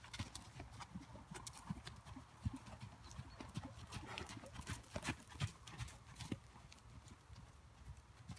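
Hoofbeats of horses trotting on a soft sand arena: a run of irregular dull knocks.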